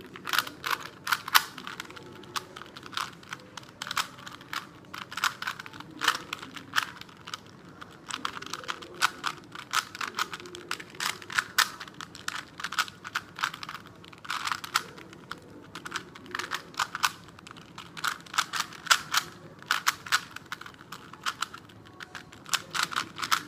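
Plastic Rubik's cube being turned rapidly in a speedsolve, a fast irregular run of clicks and clacks as the layers snap round.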